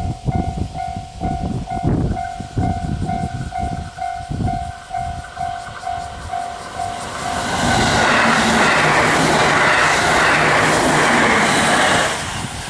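Level-crossing warning bell dinging about twice a second, then a 783-series electric limited express train passes at speed from about halfway through, a loud rush of wheel and air noise that drowns the bell and falls away near the end.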